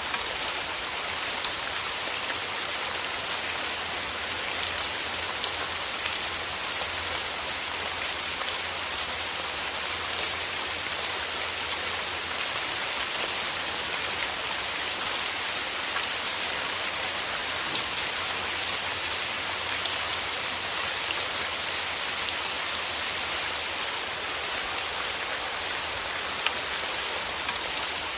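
Steady rain falling, a constant hiss with many individual drops ticking throughout.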